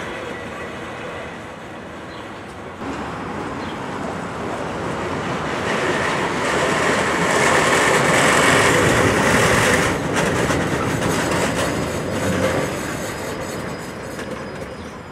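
Museum MTV-82 tram running slowly on depot track, its wheels rolling and clattering over the rails. It grows louder towards the middle, where a steady high tone joins in as the tram passes close and rounds a curve.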